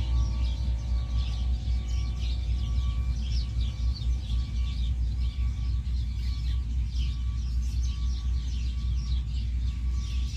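A chorus of small birds chirping rapidly and continuously, over a steady low rumble.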